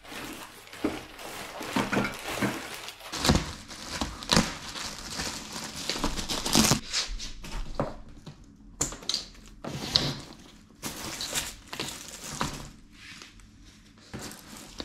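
Plastic packaging crinkling and rustling in irregular bursts, with a few sharp knocks, as plastic-wrapped paddle-board accessories and the rolled inflatable board are handled and unstrapped.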